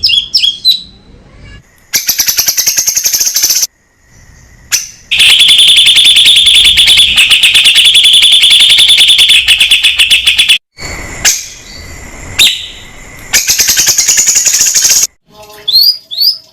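Cucak cungkok songbird singing: several runs of very fast repeated notes, the longest lasting about five seconds, between short chirped and whistled notes.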